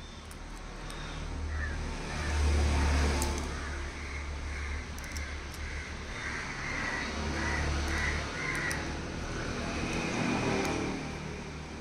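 An animal calling in a run of about five short, evenly spaced calls a little past the middle, over a steady low rumble.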